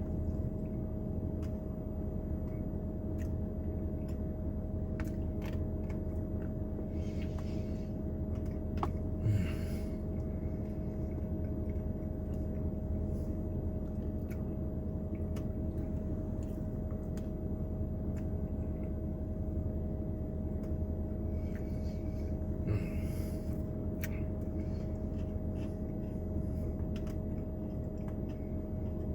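Steady low rumble with a constant hum, under scattered soft clicks and a few brief scrapes and rustles while a Dairy Queen Blizzard is tasted.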